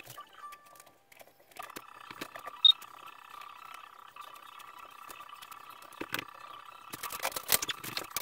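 An older Cisco 3750 48-port PoE network switch's cooling fans start with a steady whine about a second and a half in, and a single short high beep follows soon after. Clicks and rattles from cables being handled in the rack run throughout and get louder and busier near the end.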